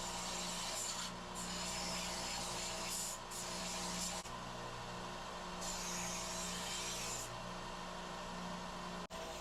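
Belt sander running with a steady hum, its grinding hiss coming and going several times as mild steel pieces are pressed to the belt and lifted off to clean them up.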